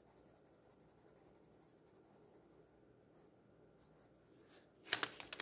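Graphite-and-colour pencil scratching faintly on sketchbook paper in quick back-and-forth strokes as a swatch is shaded in. A few sharp clicks and taps come near the end and are the loudest sounds.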